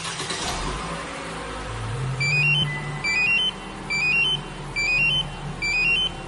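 Compustar two-way remote-start fob beeping a short rising run of notes five times, about once a second, over the steady low running sound of a car that has just been remote-started.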